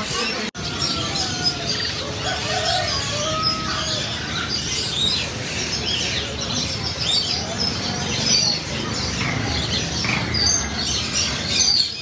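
Many caged birds chirping and whistling over one another in a dense, continuous chatter, with a brief gap about half a second in.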